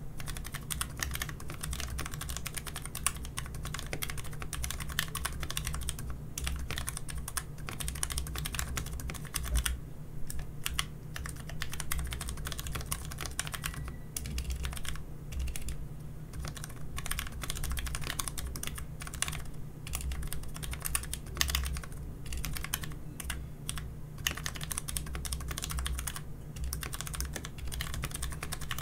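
Fast, continuous typing on a Logitech G513 mechanical keyboard with lubed Romer-G tactile switches and three layers of foam inside the case, a mod meant to make it less noisy. Keystrokes run densely, thinning briefly a couple of times.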